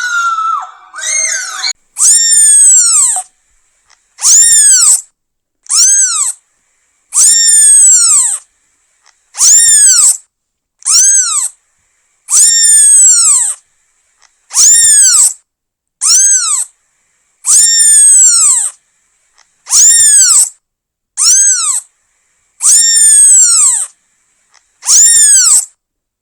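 Young kitten meowing over and over: a long series of high, loud calls, each rising and then falling in pitch, with short silences between them. The first call, in the opening second and a half, is rougher and broken.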